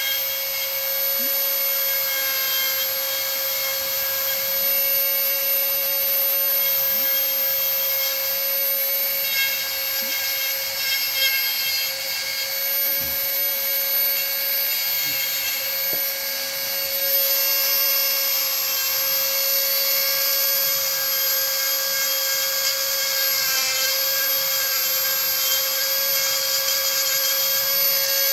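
Dremel rotary tool on a flex shaft running steadily at high speed, a constant whine, while its burr grinds into pine wood with a hissing rasp. The grinding grows heavier past the middle.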